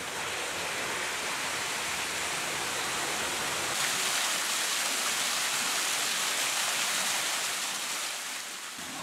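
Water rushing and churning in a mill's concrete turbine pit as it drains out through a Francis turbine. The rushing turns brighter and hissier about four seconds in.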